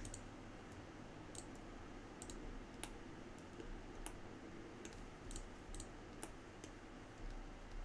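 Faint computer mouse clicks, scattered and irregular, from button presses and scroll-wheel use, over low steady hiss.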